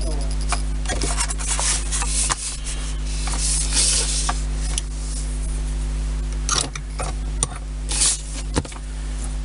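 Hands rubbing and smoothing clear tape down over a paper plan on a building board, making a run of swishing rubs with a few light ticks, over a steady low hum.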